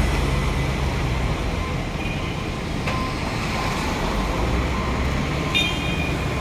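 Steady street traffic noise, with engines rumbling. A brief high-pitched tone sounds about five and a half seconds in.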